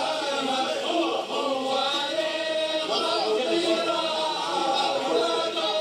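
A group of men chanting and singing together in a Libyan zaffa wedding procession, many voices overlapping without a break, heard played back through a television.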